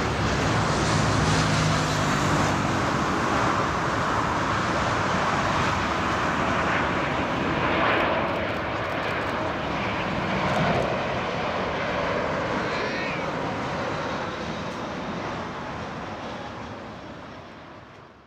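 Airbus A321 airliner's jet engines during landing: a loud, steady jet rush that swells briefly twice in the middle, then fades away over the last few seconds.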